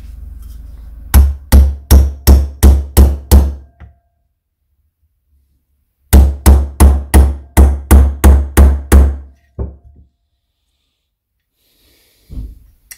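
Hammer blows on a drift driving the rocker shaft into a Triumph Trident T160 aluminium rocker box, through an O-ring compressing tool. Two runs of quick, even blows, about seven and then about ten, roughly three a second, then a few lighter taps; the shaft is coming through but not yet fully home.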